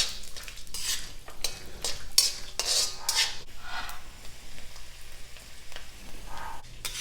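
Peanuts sizzling in hot oil in a kadai while a spoon stirs them, with repeated scraping strokes against the pan. The strokes thin out about four seconds in, leaving the sizzle, with one more stroke near the end.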